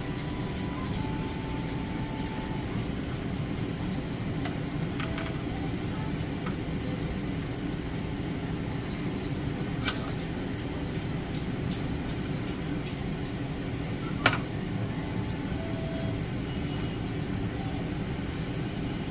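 A steady low rumble, like a running fan, under light clicks and scrapes of a metal spoon scooping sugar sand from a felt maple-syrup filter in a wire stand. There are two sharper clinks, about ten seconds in and about fourteen seconds in; the second is the louder.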